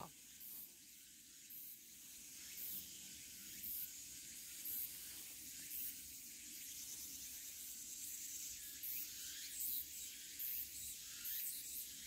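Faint insect chorus: high-pitched chirring in short pulses, repeating roughly once a second.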